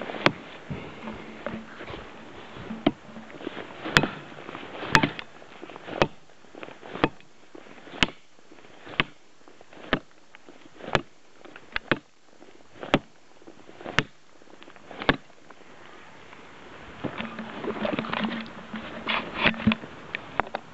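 A heavy Busse CS TTKZ chopping knife striking into a fallen pine log's resin-soaked fatwood, about one sharp chop a second. The chops stop after about fifteen seconds, and a few seconds of rustling and crunching follow near the end.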